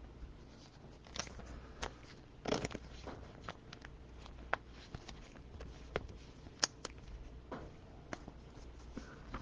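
Trading cards being handled: scattered light clicks and short crinkly rustles.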